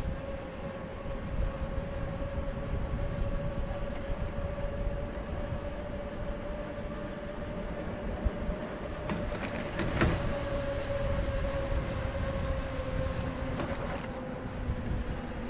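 Bicycle rolling along with a steady, high squeal from its brakes, which the rider suspects comes from a leaf stuck in them, over a low rumble of tyres and wind on the microphone. A single sharp knock comes about ten seconds in.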